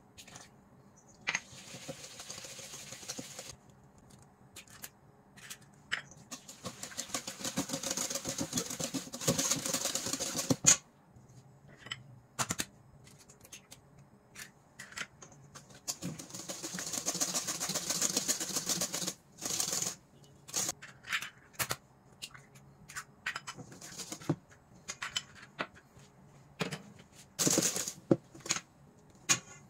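Wire whisk beating chocolate batter in a stainless steel bowl, its wires ticking rapidly against the metal in several bursts of a few seconds each, with scattered clicks and knocks between.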